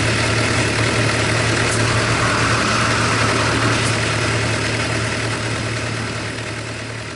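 Suzuki GSX-R750 L2's inline-four engine idling steadily with a busy mechanical tappet clatter. The owner says this tappet noise grows loud until the engine is fully warm, and suspects wear after 53,000 km and circuit riding, perhaps needing an engine overhaul. The sound fades out over the last few seconds.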